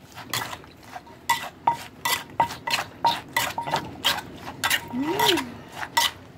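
Wooden pestle pounding and a metal spoon turning papaya salad with chicken feet in a mortar: an uneven run of knocks, two or three a second, some with a short metallic ring where the spoon strikes the mortar.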